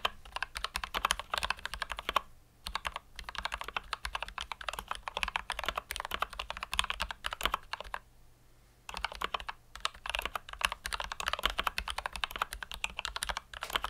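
Fast typing on a mechanical keyboard: a dense run of key clicks, broken by two short pauses, about two and a half seconds in and around eight seconds in.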